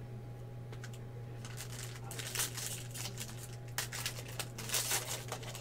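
Plastic card packaging crinkling and rustling in short irregular bursts as cards are handled, starting about a second and a half in and busiest near the end, over a steady low hum.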